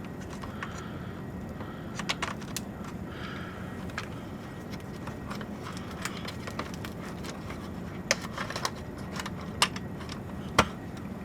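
Server cable connectors and plastic parts clicking and rattling as cables are handled and plugged back into the motherboard, in scattered sharp clicks with the loudest near the end, over a steady low hum.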